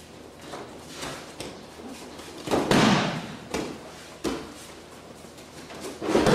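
A body slamming onto the mat in aikido breakfalls as the attacker is thrown: a heavy thud about two and a half seconds in and another near the end, with lighter knocks of feet on the mat between.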